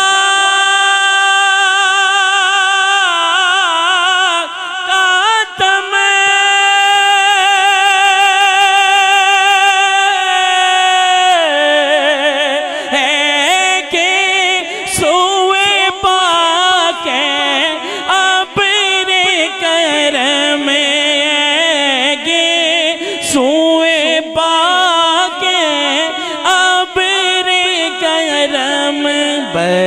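A man singing a naat, devotional praise of the Prophet, into a microphone without instruments. He holds one long high note for about eleven seconds, then breaks into quick, wavering ornamented runs at a slightly lower pitch.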